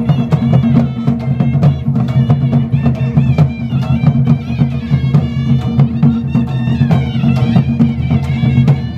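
Live Pahadi folk music for a Nati dance: drums beating a steady, dense rhythm with a wavering melody played over them.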